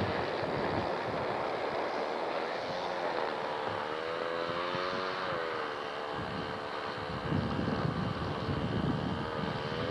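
Atlantic-type live steam locomotive #988 working under its first steam, a steady hiss and rumble with a wavering pitched tone in the middle and again near the end.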